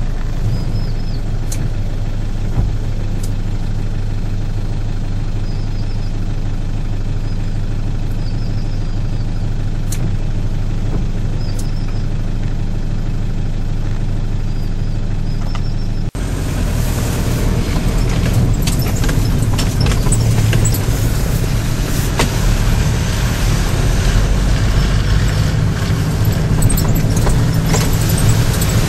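Steady engine and road noise heard inside a Hyundai Galloper SUV's cabin as it drives on a slushy, snow-covered road. About sixteen seconds in, the sound changes abruptly to a louder, rougher run with more tyre and road noise.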